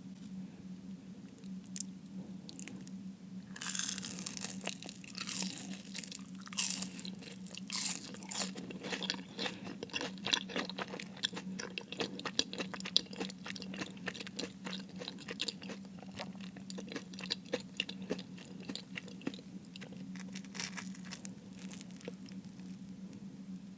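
Close-miked crunching and chewing of crispy fried food, dense crackling bites for most of the stretch, with quieter moments at the start and end. A steady low hum runs underneath.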